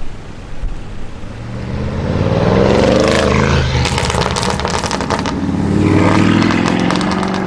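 Audi RS6 Avant's twin-turbo V8 through a Capristo exhaust, loud, swelling up twice in revs. Each swell is followed by a rapid string of exhaust crackles and pops as the revs drop.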